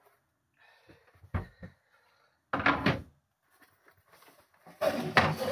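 Wooden locker lid in a boat's seat base being lifted open and its contents handled: a few separate knocks and bumps with short quiet gaps between them.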